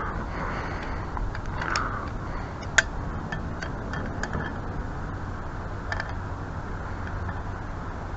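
Scattered light metallic clicks and ticks from brass spigot fittings being worked and tightened, one sharper click about three seconds in, over a steady low hum.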